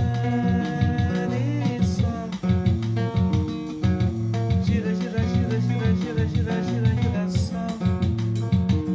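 Acoustic guitar played continuously, with a rhythmic bass line under strummed chords.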